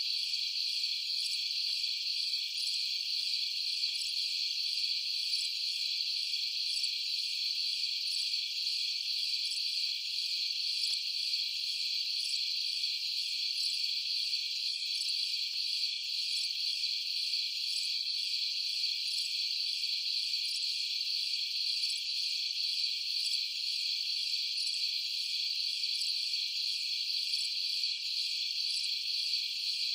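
Chorus of crickets at night, a dense high-pitched trilling that keeps on without a break.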